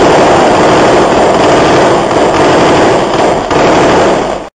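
Loud, overloaded crackling din of dense gunfire from a combat recording, running without a break and cutting off suddenly near the end.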